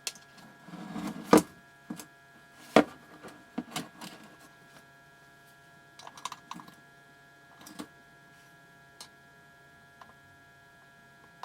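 Scattered clicks and light knocks of hands handling plastic gear as multimeter test probes are set against a portable jump starter's output terminals, the loudest two about a second and a half apart near the start, with a faint steady electrical hum underneath.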